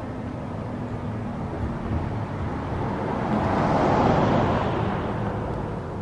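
A road vehicle passing, its tyre and engine noise swelling to its loudest about two-thirds of the way through and then fading, over a faint steady low hum.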